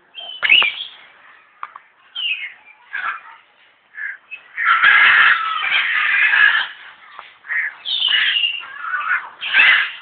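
African grey parrots calling: a run of short squawks and whistles, several sliding downward in pitch, with a louder, denser stretch of about two seconds in the middle.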